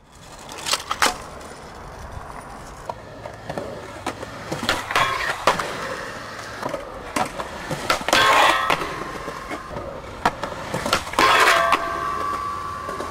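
Skateboard wheels rolling on concrete, broken by a string of sharp clacks as the board pops and lands. Longer scrapes come about eight seconds in and again near the end, the last one ringing with a steady metallic tone like trucks grinding a metal rail.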